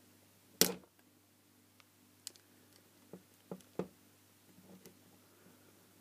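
Small screwdriver prying and scraping at an LED module glued into a garden spotlight housing. There is a sharp click about half a second in, the loudest sound, then a few lighter clicks a couple of seconds later as the tip works around the edge, against glue rather than screws.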